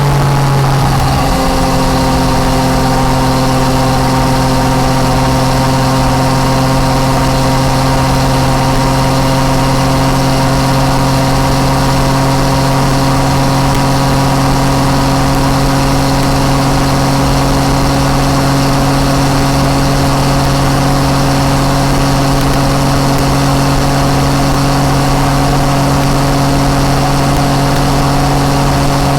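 Yamaha MT-09 Tracer's 847 cc inline-three engine through an Akrapovič exhaust, its pitch dropping in the first second or so and then holding a steady drone at constant revs, as when cruising.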